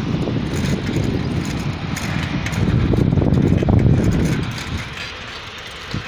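Wind buffeting the phone's microphone while cycling, a low rumble that swells in the middle and eases off near the end.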